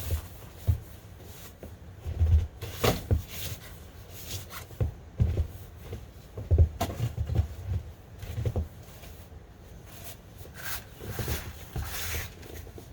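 Irregular knocks, bumps and rattles, spaced unevenly, as a snow-laden flag that has wound tightly around its pole is tugged at without coming down.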